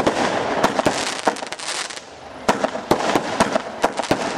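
Fireworks display: a rapid string of sharp bangs over dense crackling. The crackling bursts in at the start, thins for a moment around two seconds in, and comes back strongly about half a second later.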